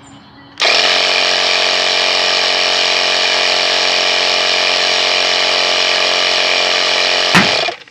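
Handheld electric power tool motor running at a steady speed, starting abruptly under a second in, then switched off near the end and winding down in pitch.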